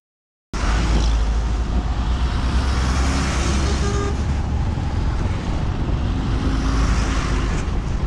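Road and traffic noise heard from a moving vehicle on a dusty, unpaved road: a steady low rumble with a hiss over it, cutting in suddenly about half a second in, as trucks and other vehicles pass close by.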